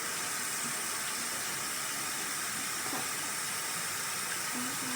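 Hot water running steadily from a tap, a continuous hiss.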